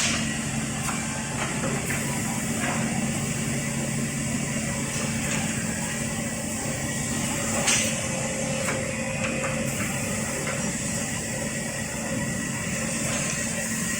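SM-20-1J double-end wood cutting and drilling machine with automatic feed, running: a steady motor hum with scattered light clicks and one sharper knock a little before the middle.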